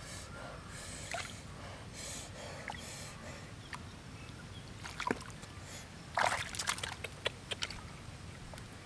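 Hands sloshing and splashing in muddy water in a small dug hole while feeling for fish, with a sharp splash about five seconds in and a burst of splashing about a second later.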